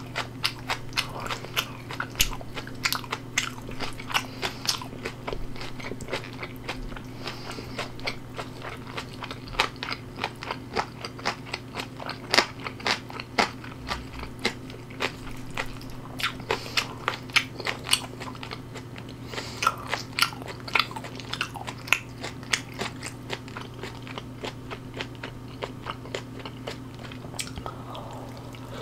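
A person chewing and biting crunchy food close to the microphone: dense, irregular wet crunches and smacks.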